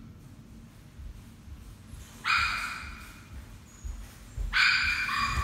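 Bichon Frise dog crying out twice in high yelps or whines, a short one about two seconds in and a longer one near the end. The dog is impatient to be fed while being made to wait quietly for its meal.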